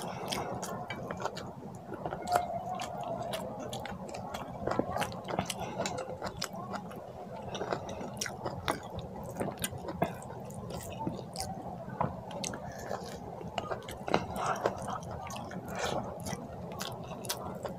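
Close-up eating sounds: wet chewing of rice and curry, with soft squishing and many small clicks as fingers mix and gather curry-soaked rice on the plate.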